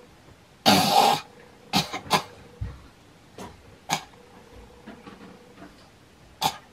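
A girl coughing: one long, loud cough about a second in, then several short coughs spread through the rest.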